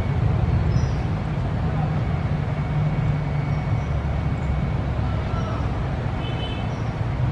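Steady low outdoor background rumble, with a few short, faint high chirps over it.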